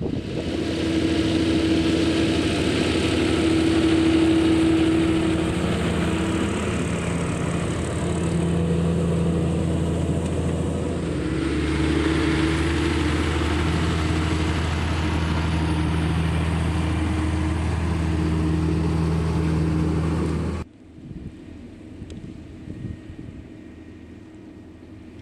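CLAAS Arion 640 tractor's six-cylinder turbo-diesel running steadily under load while pulling a five-furrow plough, its pitch shifting slightly about halfway. It cuts off abruptly near the end, leaving faint wind noise.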